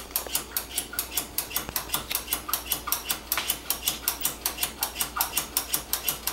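Rapid, even mechanical clicking, about five clicks a second, keeping up a steady rhythm throughout.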